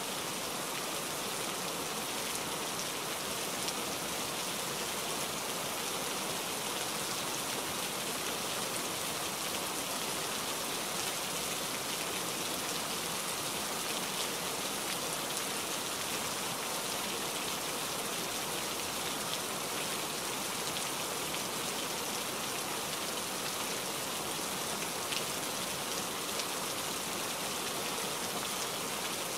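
Steady rain: an even hiss of falling rain with scattered faint drop ticks.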